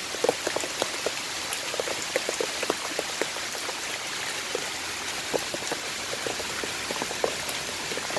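Heavy rain falling: a steady hiss with many separate close drop hits.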